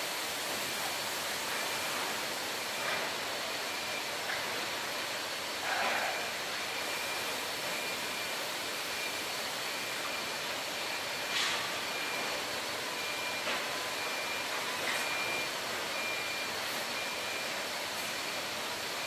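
Steady machine noise of a bottle palletizing line running, with a warning beeper giving short high beeps about twice a second. Twice, a brief louder clatter stands out.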